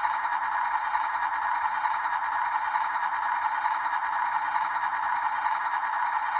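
Small electric motor and plastic gearing of an RC toy construction truck running steadily with a fine, even rattle.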